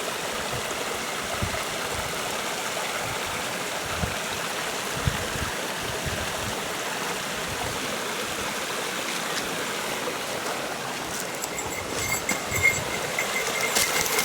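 Waterfall rushing steadily, with a few sharp clicks near the end.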